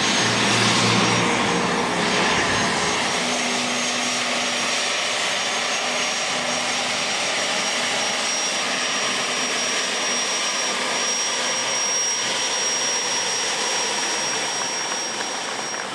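Gulfstream G250 business jet taxiing, its twin Honeywell HTF7250G turbofans running steadily: an even rush of engine noise with a thin, steady high whine.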